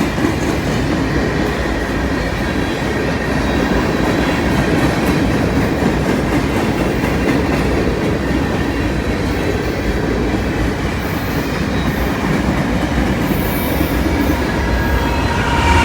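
CN freight train rolling past close by: a steady rumble and clatter of its cars' wheels on the rails, with a faint thin squeal from the wheels.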